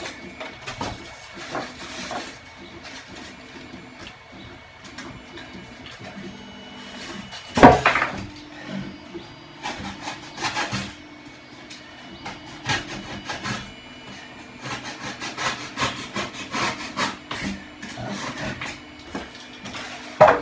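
Utility knife cutting through a white polystyrene foam board in repeated scraping strokes. The loudest stroke comes about eight seconds in, and the strokes come quicker and closer together in the last several seconds.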